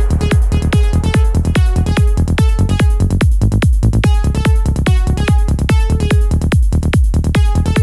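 Electronic trance music with a steady kick drum beat, about two beats a second, and short repeating synth notes.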